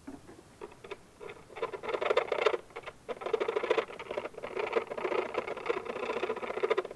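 A round file filing the edge of a freshly drilled hole in the soft plastic housing of a Honda EU2000i generator, deburring it. It scrapes in quick strokes: a short run about a second and a half in, then a longer, near-steady run from about three seconds in.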